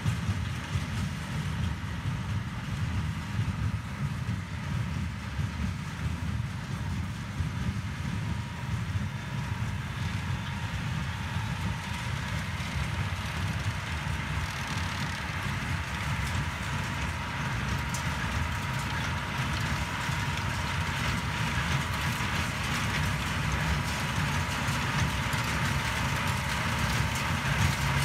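Case CX100 tractor running steadily under load while pulling a Claas Dominant small square baler through the hay, the tractor engine and baler working together; the sound grows slowly louder toward the end as the outfit comes closer.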